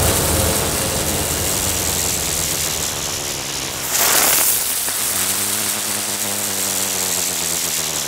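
Sound design for an animated channel logo sting: a dense low rumbling drone with a whoosh about four seconds in.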